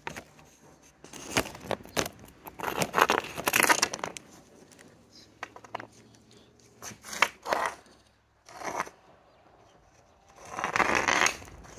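Hockey stick blade and puck scraping over an asphalt driveway in several short, uneven scrapes, with quiet gaps between them.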